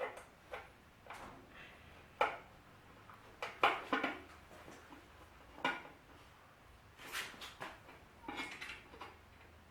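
Irregular metallic clicks and clinks of a hand tool against the Shopsmith's metal parts as a screw is worked loose, a dozen or so short knocks spread unevenly.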